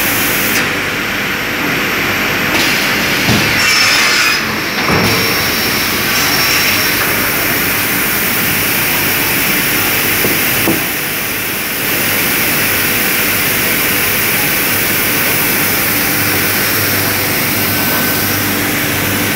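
Global Edge HP20 pneumatic cross-cut saw running, a loud, steady machine noise, with a few short knocks in the first half as boards are clamped and cut.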